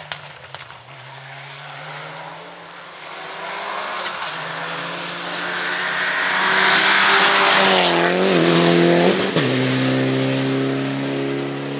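Rally car engine at high revs as the car approaches at speed. It grows louder to a peak about seven to eight seconds in, drops in pitch as the car passes, then holds a steady note as it pulls away.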